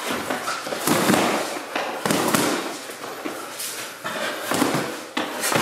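Boxing gloves landing in sparring: a run of about ten sharp, irregularly spaced smacks of gloves against gloves and body.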